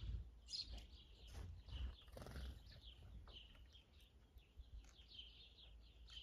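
Small birds chirping faintly, with many short chirps repeating throughout, over a faint low rumble.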